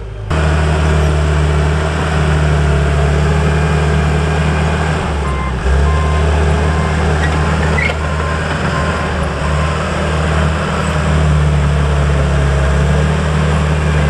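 John Deere 450H crawler bulldozer's diesel engine running hard under load. Its steady drone rises sharply just after the start and dips briefly around five or six seconds in. A faint backup alarm beeps at intervals for a few seconds midway.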